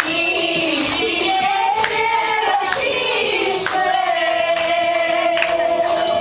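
A group of women singing together into microphones, holding one long note over the second half, with sharp claps keeping time about once a second.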